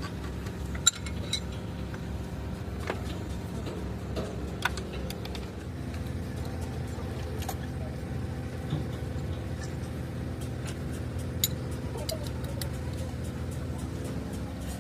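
Engine running at a steady idle, with a few sharp metallic clinks over it, the loudest about a second in.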